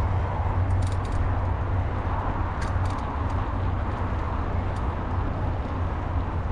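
Mountain bike rolling along a dirt trail: steady wind buffeting and tyre rumble, with a few light rattles and clicks from the bike.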